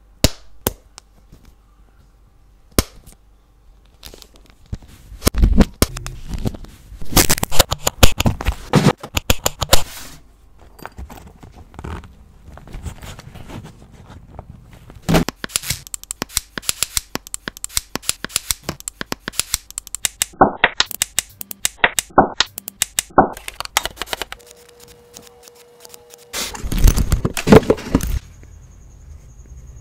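Close handling noise of a microphone on a boom arm: many irregular sharp clicks and knocks with rubbing between them as the mic and arm are gripped and adjusted. A short steady tone sounds a few seconds before the end.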